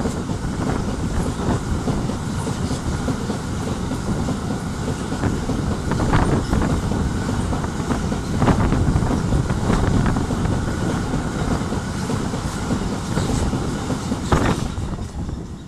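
Train passing close by on the adjacent track: steady rolling rumble with irregular knocks of the wheels over the rail joints, dying down at the very end as the last car goes by.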